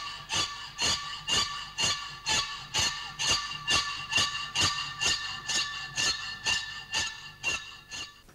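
Music track: a steady beat of metallic percussion strikes, a little over two a second, each with a bright ringing tone. It fades out near the end.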